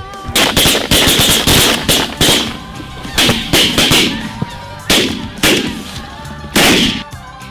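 Several shotguns firing in a rapid volley: more than a dozen shots in quick clusters over about six and a half seconds, over background music.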